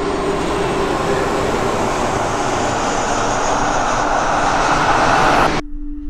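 A loud, steady rushing roar that swells a little and cuts off abruptly about five and a half seconds in, giving way to a steady low hum.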